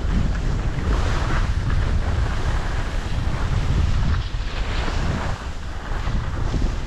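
Wind buffeting the microphone as a loud, steady low rumble, with louder patches of hiss about a second in and again around four to five seconds in.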